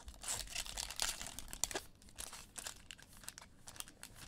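Plastic wrapper of a trading-card pack crinkling as the cards are handled, irregular rustles that are dense for about two seconds and then thin out.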